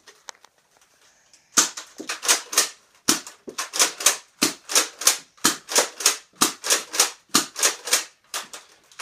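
Nerf blaster's plastic mechanism clacking in a quick, even series of sharp snaps, about three a second, starting about a second and a half in, as it is worked and fired over and over.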